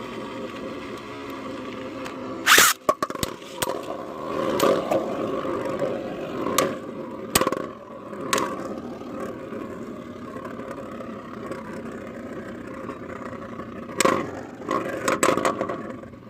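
3D-printed Beyblade spinning tops whirring and scraping around a plastic stadium, with sharp clacks as they strike each other or the wall, the loudest about two and a half seconds in and again near the end.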